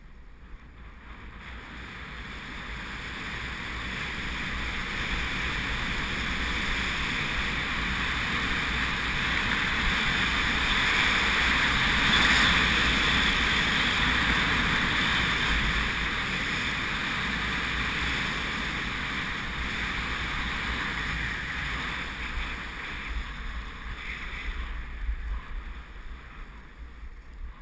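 Wind rushing over a GoPro action camera's microphone on a fast straight ski run, with deep buffeting underneath. It builds as speed picks up, is loudest about halfway through, then eases off and drops near the end.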